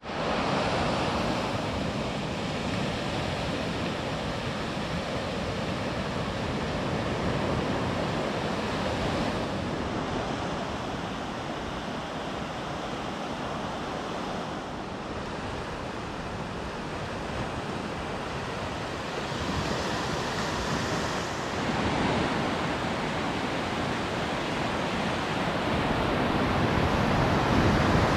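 Small waves breaking and washing up a sandy beach: a steady rush of surf that swells and eases every several seconds, with wind rumbling on the microphone.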